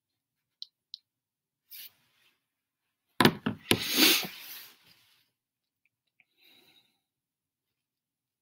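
Close handling noise: a few faint clicks, then, about three seconds in, a loud burst of knocks and rustling lasting nearly two seconds as a hand sweeps right past the recording phone; a faint rustle follows near the end.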